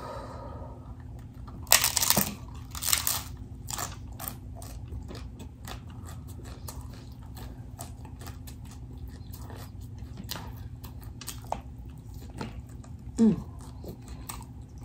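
Crisp hard-shell corn taco being bitten and chewed: two loud crunches about two and three seconds in, then a run of smaller crackling crunches as the shell is chewed. A brief falling tone near the end.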